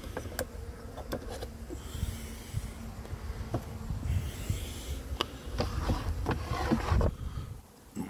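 Wind buffeting the microphone in a low rumble. A honeybee hums steadily in the first half. Toward the end come a run of plastic clicks, knocks and scrapes as the white pest tray is pulled out from the base of the hive.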